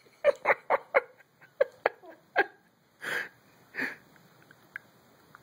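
Short breathy vocal sounds: a quick run of four in the first second, three more spaced out after it, then two longer, breathier huffs about three and four seconds in.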